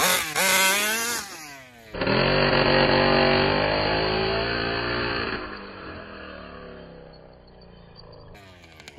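RCMAX 40GT two-stroke gas engine of a large-scale RC buggy, revved in short blips, then held at full throttle as the buggy launches; the engine note slowly drops and fades as it drives away.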